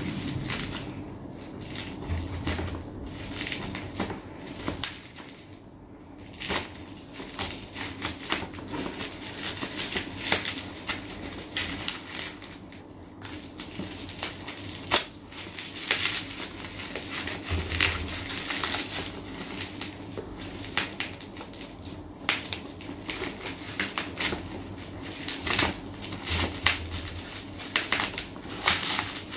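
Plastic packaging and bubble wrap crinkling and crackling as a shipped parcel is unwrapped, with many sharp, irregular crackles and an occasional dull thump.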